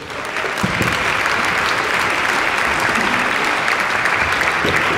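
Audience applauding. The clapping builds within the first half second and then holds steady and dense.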